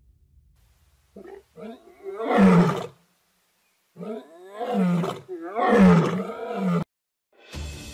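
A lioness calling in a run of low, moaning roars, each rising and then falling in pitch. There are a few short calls, then a loud one, a brief pause, and then four calls close together.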